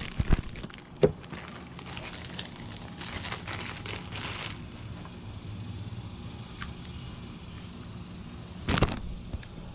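Clear plastic packaging crinkling and rustling as it is handled, with a couple of sharp knocks in the first second and a louder rustle near the end, over a steady low hum.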